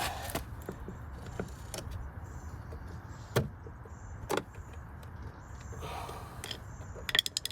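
Scattered sharp clicks and light knocks of plastic car-door trim parts being handled and fitted, with a quick run of clicks near the end, over a low steady rumble.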